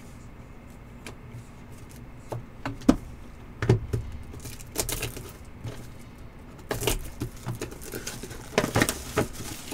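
Hands handling a trading-card box and its plastic wrap: scattered taps, clicks and crinkling rustles, busiest around four seconds in and again near the end, over a steady low hum.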